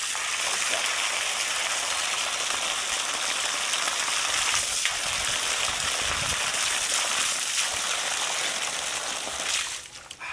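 Water gushing out of the end of a hose and spraying onto gravel and rubble, a steady hiss that cuts off abruptly near the end.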